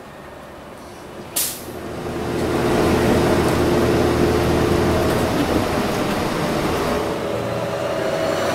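City transit bus: a short sharp hiss of air about a second and a half in, typical of its air brakes releasing, then its engine running loudly with a steady hum as the bus pulls away and drives on.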